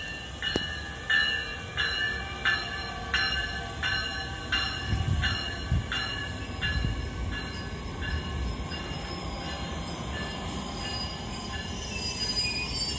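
Metra Electric bilevel electric commuter trains (Nippon Sharyo Highliner II cars) running through the station. There is a regular clicking, with a ring in it, about one every two-thirds of a second for most of the first nine seconds. It gives way to a steadier rumble, and a thin high whine grows near the end as a train draws close on the near track.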